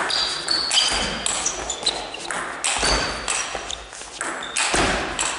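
Table tennis rally: the plastic ball clicking off bats and table in a quick, uneven run of sharp hits, echoing in a sports hall. Short high squeaks, like shoes on the hall floor, come in between the hits.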